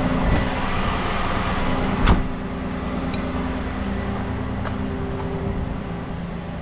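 Rollback tow truck's diesel engine idling steadily, with one sharp knock about two seconds in as the cab door is shut.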